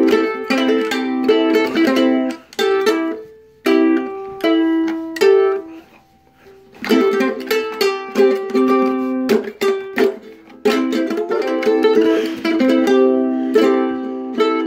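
Ukulele strummed and plucked in quick runs of chords and single notes. The playing stops for about a second just past the middle, then picks up again.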